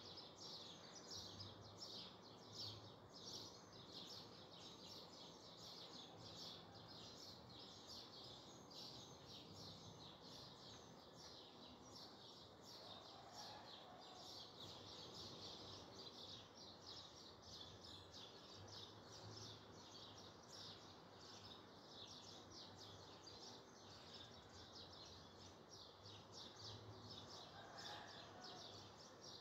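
Near silence with faint, rapid high-pitched chirping in the background.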